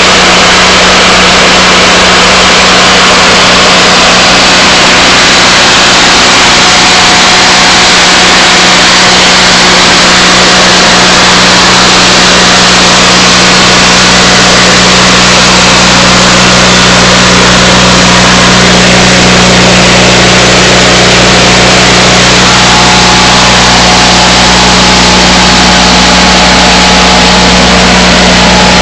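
Onan Performer 16 twin-cylinder engine of a Lincoln Ranger 8 welder/generator running at a steady speed, loud and close, with an even hum that does not change.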